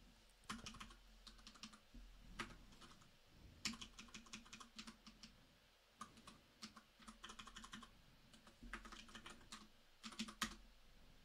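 Faint computer keyboard typing: short, irregular runs of keystrokes with brief pauses between them.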